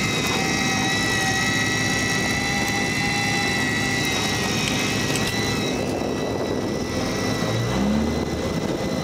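Steady mechanical drone of a fishing boat's engine, with a steady high whine over it and a short rising tone near the end.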